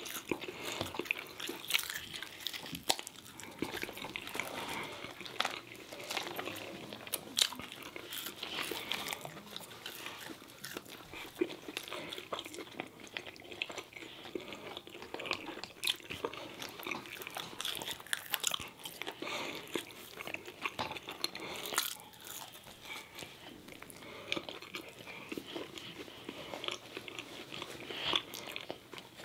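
Close-miked chewing and biting of McDonald's food (chicken sandwich, fries, apple slices), with crunches and many small sharp mouth clicks throughout.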